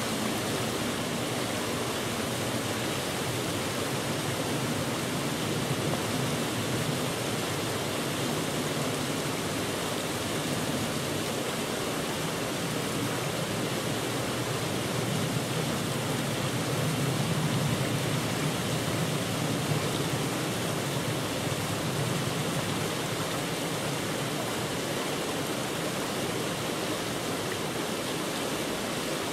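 Steady, even rushing noise with no distinct events, swelling slightly in the low end about two-thirds of the way through.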